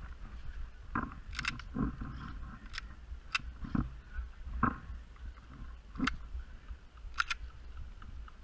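Scattered sharp cracks of airsoft guns firing: single shots and two quick pairs, mixed with several duller thuds. A low wind rumble on the microphone runs underneath.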